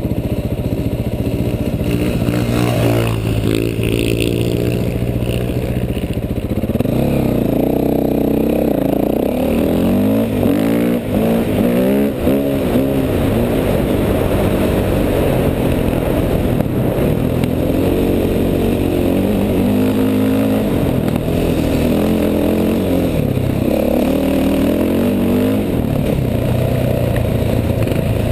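Dirt bike engine under way, revving up and easing off over and over, its pitch repeatedly climbing and falling as the rider rides on.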